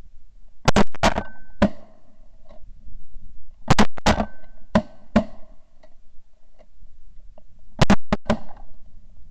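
Shotgun shots fired at a passing flock of ducks, in three volleys with a brief echo after each: several shots about a second in, four or five more around four to five seconds in, and two quick shots near the end.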